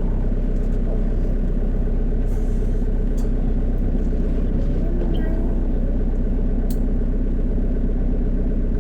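Heavy rain pouring down steadily, hard enough to sound like hail falling.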